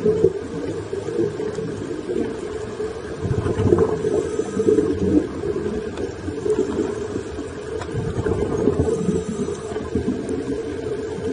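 Low, muffled underwater rumble picked up through an underwater camera's housing, rising and falling irregularly.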